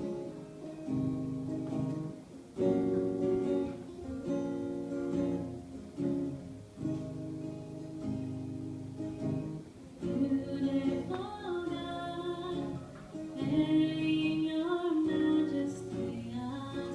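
Strummed acoustic guitar playing the song's introduction, with a woman's singing voice coming in about ten seconds in.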